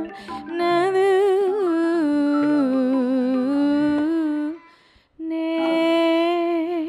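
Burmese traditional music accompanying a stage dance: one reedy melody line holds long, wavering, ornamented notes over low steady notes. It breaks off briefly about four and a half seconds in, then resumes.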